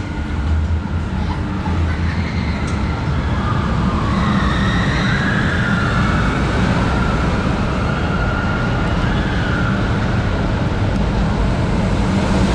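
Jeep-shaped car of a kiddie track ride running along its track with a steady low rumble. A faint wavering higher sound rises over it from about two seconds in.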